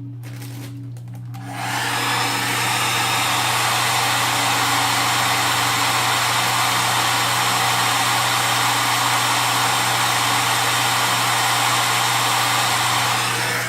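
Handheld blow dryer running, a steady rush of air that starts about a second and a half in and cuts off near the end.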